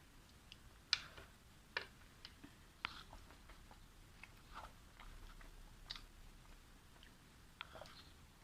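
Close-miked eating sounds: chewing with irregular wet mouth clicks and smacks, a few sharper ones about one, two and three seconds in.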